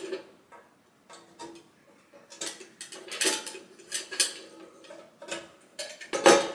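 Irregular metal clinks and knocks as a loaded meat skewer is fitted into a vertical gyros grill, with the loudest knock near the end.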